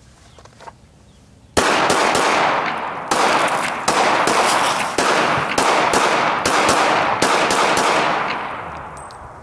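A semi-automatic handgun fired rapidly outdoors: a string of a dozen or more shots starting about a second and a half in, each crack trailing a long echo, the string ending about a second before the close.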